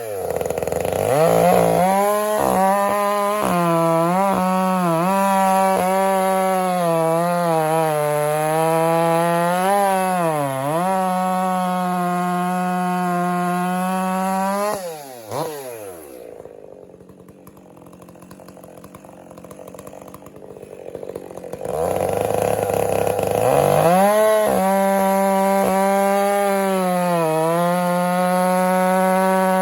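Stihl MS 400 C-M two-stroke chainsaw at full throttle cutting through a log, its pitch dipping now and then as the chain loads in the wood. About halfway through the throttle is let off and the saw drops to a quiet idle for several seconds, then revs back up and cuts again.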